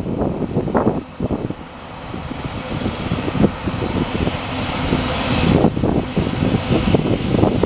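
Wind buffeting the microphone in gusts, mixed with the low rumble of a passing freight train, with a brief lull about a second in.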